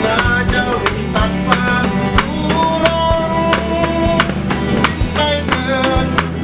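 Instrumental break in a song: guitar over a steady drum beat, with no singing.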